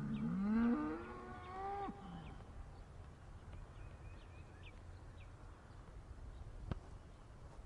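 Cow mooing: one long call that rises in pitch over about two seconds, followed by quieter background with faint high chirps and a single sharp click near the end.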